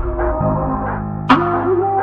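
Background music: sustained, held chords with a single sharp percussive hit about two-thirds of the way through.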